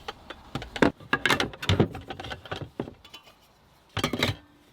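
Camping tableware and supplies being handled and set down: a string of light clicks and knocks with some rustling, in irregular bunches.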